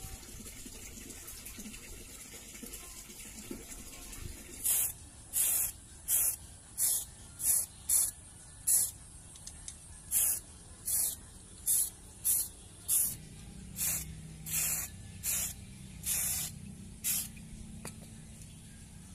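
Aerosol spray-paint can spraying in short hissing bursts, about seventeen of them at roughly one every two-thirds of a second, starting about five seconds in, with a brief pause midway.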